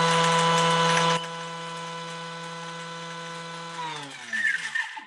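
Thermomix motor running steadily, chopping lemon rind into zest. About a second in it drops much quieter, and near the end it winds down in pitch to a stop, followed by a few light rattles.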